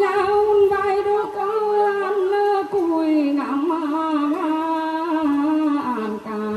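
A woman singing a traditional Mường folk song into a microphone, amplified through a PA loudspeaker, in long held notes that waver and slide in pitch.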